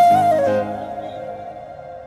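Background music: a flute melody holds a note, slides down to a lower one about half a second in, then fades away.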